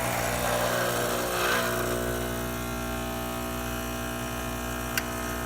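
Pasquini Livia 90 espresso machine's vibratory pump buzzing steadily while it pulls an espresso shot through the group head. A small click sounds near the end.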